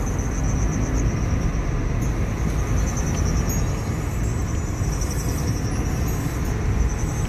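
Steady road and engine rumble inside a moving car's cabin, with a thin high whine above it.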